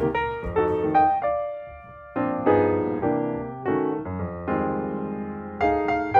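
Background music: piano playing a melody with chords, notes struck in clusters, with a short pause about two seconds in.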